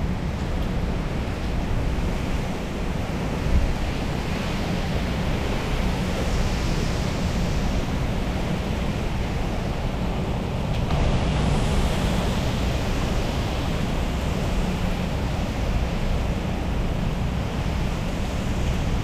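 Tropical-storm wind and heavy rain: a steady rush of rain with gusting wind buffeting the microphone, swelling a little about eleven seconds in.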